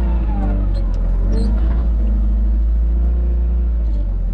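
Farm tractor diesel engine running steadily with a deep rumble, its pitch dipping and recovering in the first second or two.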